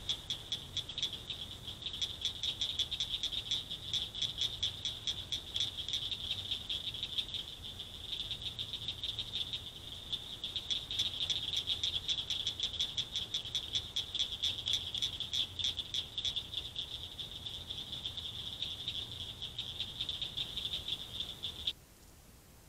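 Frogs calling in a steady, high-pitched pulsing chorus that cuts off suddenly near the end.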